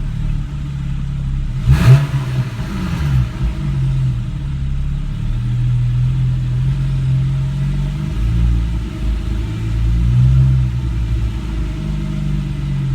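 2013 Porsche 991 Carrera 4S's 3.8-litre flat-six idling unevenly, its pitch and loudness rising and falling, with one brief loud surge about two seconds in. This is the rough idle the owner is documenting, together with a hesitation.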